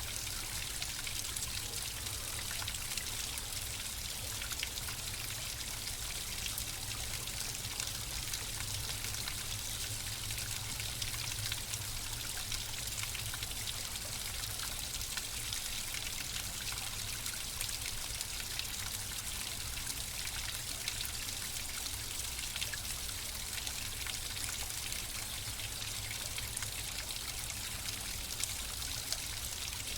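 Flowing water running steadily, a continuous trickling and splashing with fine droplet patter on top and a low rumble beneath.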